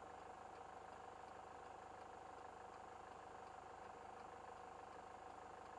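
Near silence: faint steady hum inside a stopped car with its engine idling, with a thin steady whine over it.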